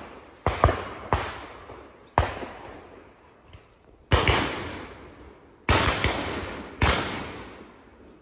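Shotguns firing at driven ducks: about seven sharp shots in eight seconds, some in quick pairs, each dying away over a second or so.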